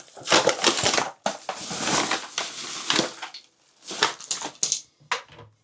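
Packaging of the new toilet crackling and rustling as it is handled for about three seconds, followed by several short sharp knocks.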